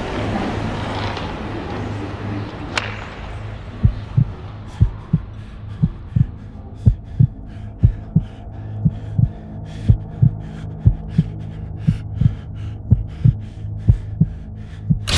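A heartbeat-like rhythm of paired low thumps, about 85 pairs a minute, over a steady low hum. It starts about four seconds in, after a noisy rumble dies away.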